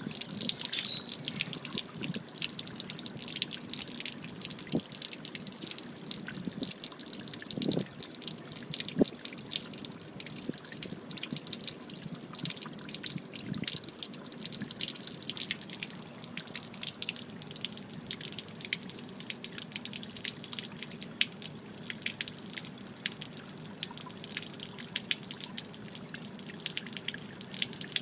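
Steady stream of water pouring from a Mako Pro Skiff's open hull drain and splashing onto pavement in a continuous patter. It is water trapped inside the hull, a fault the owner says needs fixing.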